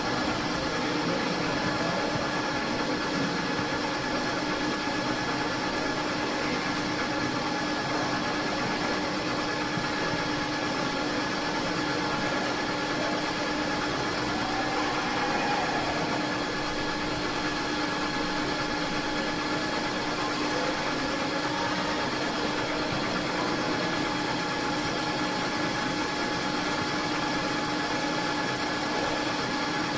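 Metal lathe running steadily with its chuck spinning a steel bar: an even machine hum with several steady tones from the spindle and gearbox, with no cutting heard.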